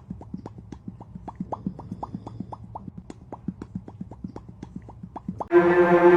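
A quick, even run of short plopping pops, about four or five a second, each rising slightly in pitch. About five and a half seconds in, loud music with low sustained tones starts.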